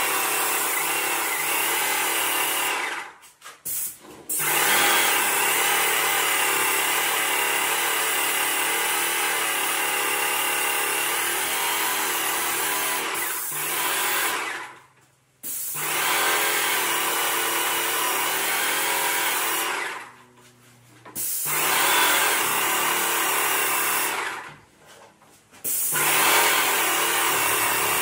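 Airless paint sprayer running steadily as paint is sprayed onto a ceiling. It drops away sharply and returns about four times.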